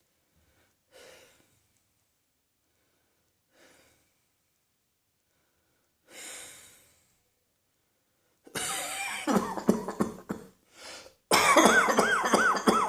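A person coughing: three faint, short sounds in the first half, then from about two-thirds in, loud fits of rapid repeated coughs.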